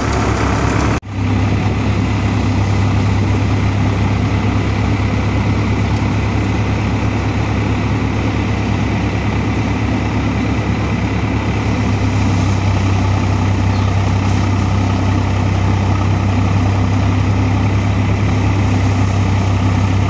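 Tractor diesel engine running steadily under load, driving a paddy thresher, with the thresher drum and straw blower whirring over a strong, even low hum. The sound breaks off for an instant about a second in, then carries on unchanged.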